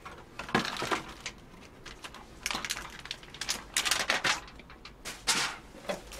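Rustling and crinkling of a plastic takeout bag as food is pulled out, then a paper food box being handled and its lid opened, in a run of short, irregular rustles.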